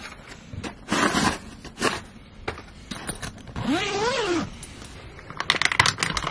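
Rustling, clicking and crinkling as food packets and small items are handled, with a short rising-then-falling squeak or groan about four seconds in and a quick run of sharp crackles near the end.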